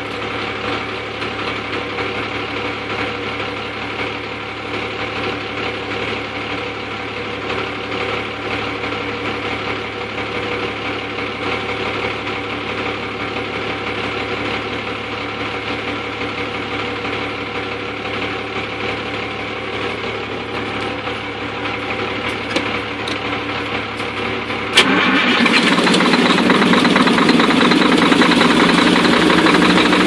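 Heavy truck diesel engine running on its own, coughing and rough, which the owner puts down to bad injectors. About 25 seconds in it suddenly gets louder and stays louder.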